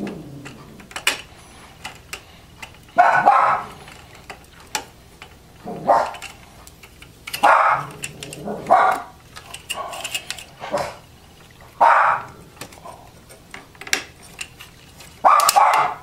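A dog barking, about half a dozen short barks spaced a second or more apart. Between the barks come light clicks of the plastic graphics card bracket being pushed into its latching indents in the computer case.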